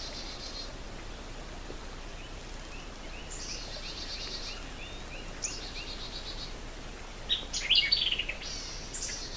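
Wild birds singing: a run of repeated chirps, about three a second, with high trills over them in the middle, then a loud, complex song phrase near the end, over a steady outdoor hiss.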